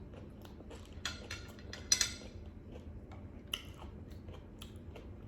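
Light clicks and clinks of tableware during a meal. The sharpest comes about two seconds in, with others near one second and three and a half seconds in.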